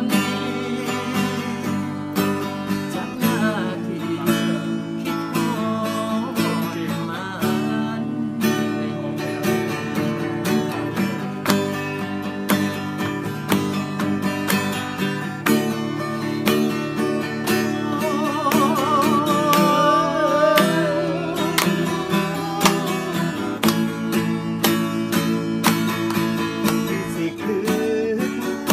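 Acoustic guitar strummed and picked in a steady rhythm, with a man singing along in places and holding a wavering note about two-thirds of the way through.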